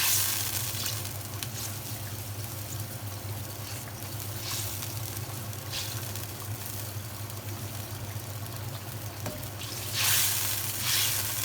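Pre-boiled tofu simmering and sizzling in the bubbling mapo tofu sauce in a hot pan, a steady sizzle with a few louder swells, the biggest about ten seconds in.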